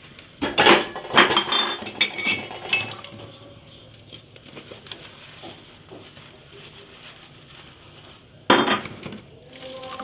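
Dishes and cutlery clattering and clinking in a kitchen sink during washing up: a cluster of knocks and clinks, some briefly ringing, in the first few seconds, a quieter stretch, then another clatter near the end.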